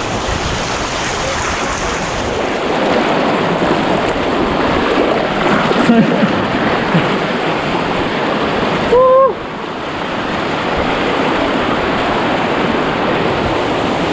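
Steady rushing of river water with wind on the microphone. About nine seconds in there is a brief high-pitched tone.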